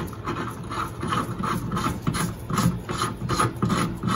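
A Merlin engine spark plug being screwed by hand into the threaded adapter of a spark plug tester: repeated rasping of metal threads and rubber glove, about three twists a second.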